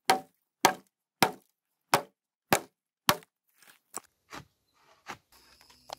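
Repeated sharp blows on a dry dead log: six loud cracks about every half-second, then a few weaker ones, as the wood splits and snaps in two. Steady cricket trilling comes in near the end.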